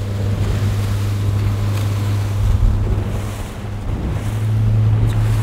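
A fishing boat's engine running with a steady low hum, under wind noise on the microphone and the wash of the sea. The hum grows stronger about four and a half seconds in.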